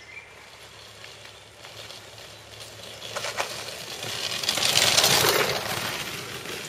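Handcycle wheels crunching over a gravel track as the rider passes close by. The sound rises about three seconds in, peaks around five seconds, then eases off.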